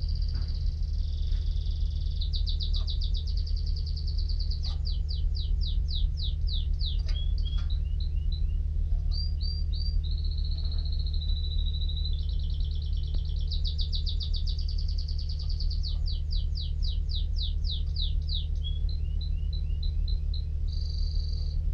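Domestic canary singing a long song of fast rolling trills and rapid sweeping repeated notes, broken by a few held whistled tones, over a steady low hum.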